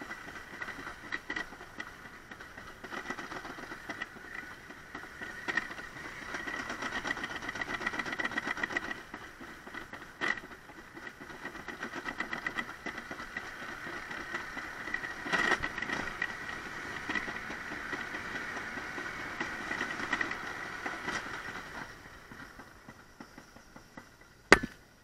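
Summer toboggan sled running down a stainless-steel trough track, a steady rattling clatter with a high hum. Near the end it slows and fades, and a single sharp knock sounds just before the finish.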